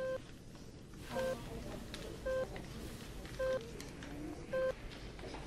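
Hospital patient monitor beeping steadily, one short beep a little more than once a second.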